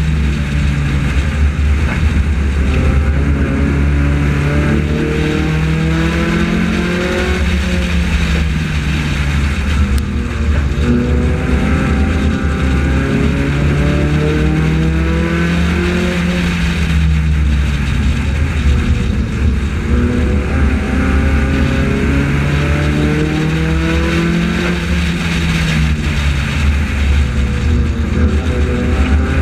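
Onboard sound of a front-wheel-drive race car's engine lapping an oval, its pitch climbing on each straight and dropping as it lifts into the turns, repeating about every nine seconds, over steady wind and tyre noise.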